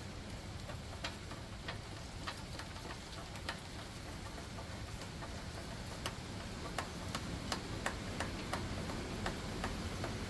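Light, irregular clicks of a wrench working the engine housing bolts loose, coming faster near the end, over a low steady hum.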